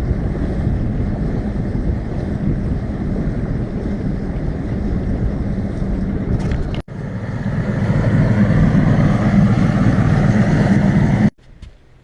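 Motorboat engine running steadily under way. It breaks off for a moment about seven seconds in, returns louder, and cuts off abruptly near the end.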